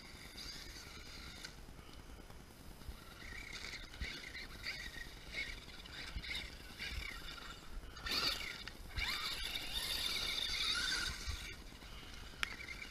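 Electric RC truck running, its motor whining high and shifting in pitch with the throttle, loudest for a few seconds about two thirds of the way in.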